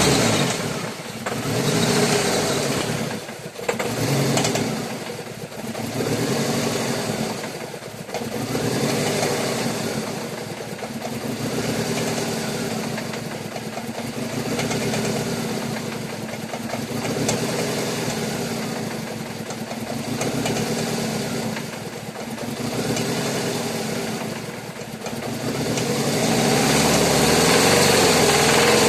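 Volkswagen Golf Mk4 engine running, its sound swelling and easing every two to three seconds, recorded to show a knock that the owner hears in the car.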